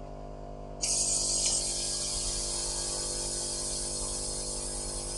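Maddox 12-volt portable air compressor running with a steady hum; about a second in, a loud steady hiss of air starts as the quick-connect chuck is pulled off the tire valve and air vents from the hose.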